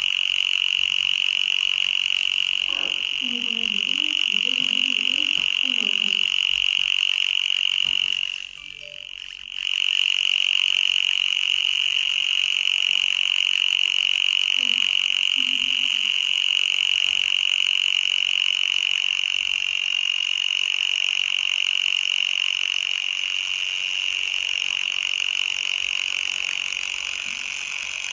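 Smartphone speaker playing a steady high-pitched buzzing tone, a sound track meant to act on mosquitoes. It cuts out for about a second near a third of the way in, then resumes.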